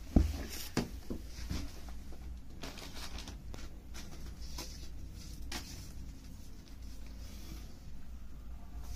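Crepe suit fabric being handled and smoothed out on the floor: soft rustling and brushing with scattered light clicks, and a thump just after the start, the loudest sound.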